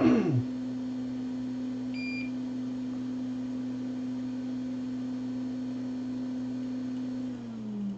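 Steady hum from a small electric motor or fan in bench equipment. It slows and drops in pitch over the last second as it winds down. A short high beep sounds about two seconds in, and a brief loud downward sweep comes right at the start.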